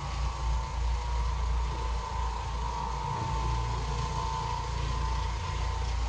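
Oreck Orbiter orbital floor machine running, its motor humming steadily as it scrubs carpet.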